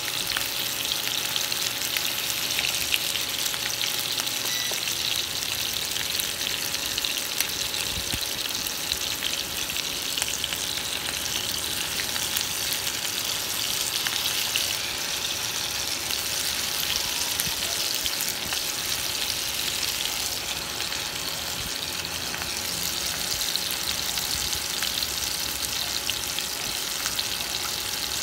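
Marinated chicken pieces sizzling in hot oil in a nonstick frying pan, a steady hiss with scattered crackles: the meat is being seared to seal in its juices before it is braised.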